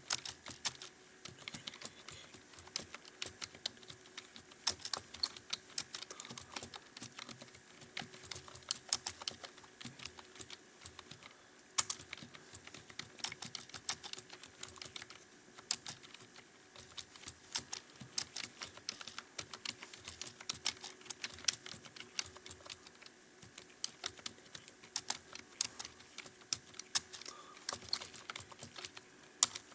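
Steady, fast typing on a computer keyboard: a continuous run of key clicks, several a second, with no long pauses.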